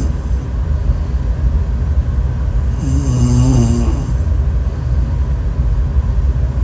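A person snoring: a constant low rumble, with one pitched snore about three seconds in that lasts about a second. Such snores come roughly every four seconds.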